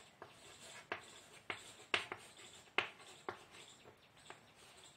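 Chalk writing on a blackboard: a faint run of short, sharp taps and scratches, roughly one every half second, as a word is written out.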